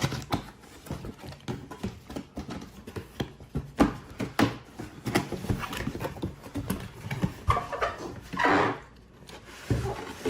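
Cardboard packaging being opened and handled by hand: scattered knocks, taps and rustles, with a longer scraping rustle near the end as something slides out of the box.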